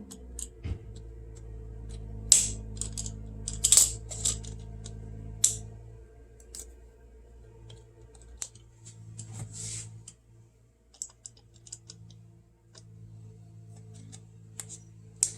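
Irregular sharp metallic clicks and taps of hand tools working a hose clamp off a PCV hose, over a steady low hum.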